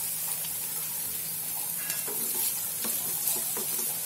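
Chopped beetroot and onion sizzling in oil in a frying pan while a wooden spatula stirs them, scraping against the pan a few times.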